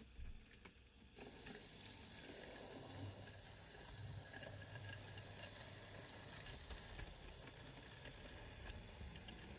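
Faint running of a Hornby model train: a small tank locomotive's electric motor humming and the four-wheel coaches' wheels ticking over the track, steady from about a second in.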